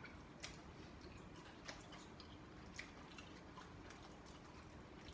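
Faint, scattered small clicks and smacks of two people chewing and picking at pieces of crispy fried chicken, close to near silence.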